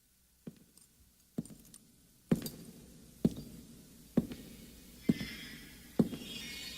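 Heavy single thuds at an even pace, a little under one a second, growing louder with each stroke.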